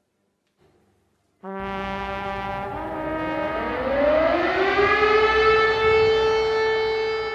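Air-raid sirens sounding the 'W' hour that marks the start of the Warsaw Uprising: sudden onset about a second and a half in, one siren winding up in pitch and levelling off. Several steady horn tones sound with it.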